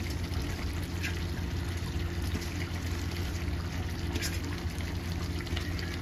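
Potato and aubergine curry simmering in a pan on a lit gas stove: a steady low hum with a soft, even bubbling hiss, and a couple of faint brief rustles.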